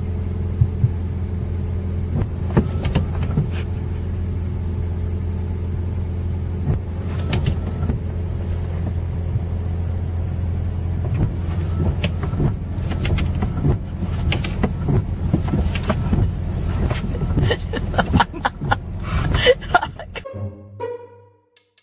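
Steady low hum of a vehicle engine running, with scattered light taps and clicks over it. The hum cuts off about a second before the end.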